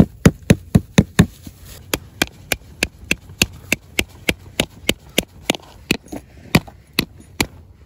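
A hand-held stone striking a metal tent peg over and over, driving it into grassy ground, about three to four strikes a second.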